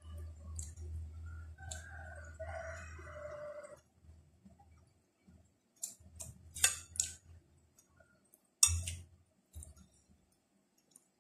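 A rooster crows faintly in the background over a low hum during the first few seconds. Then come close eating sounds, chewing and lip smacks, with sharper crunches about six to seven seconds in and a loud one near nine seconds.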